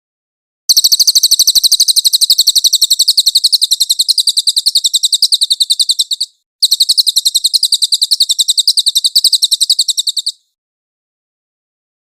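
Cililin bird singing a rapid, high-pitched trill of quickly repeated notes: one long bout of about five seconds, a brief break, then another of about four seconds that stops near the end.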